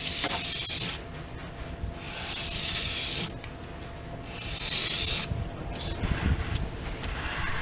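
Knife blade drawn in long strokes along a Washboard freehand sharpening board, with a scraping hiss: three strokes of about a second each, then fainter, shorter strokes near the end.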